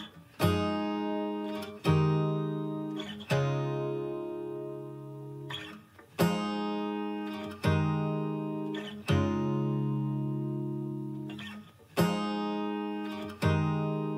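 Background music of an acoustic guitar strumming chords, each one ringing out, a strum about every second and a half with short breaks between groups.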